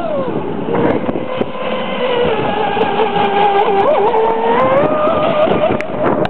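Electric RC speedboat running fast on a 3S LiPo, its motor and propeller giving a whine that wavers in pitch and rises about halfway through.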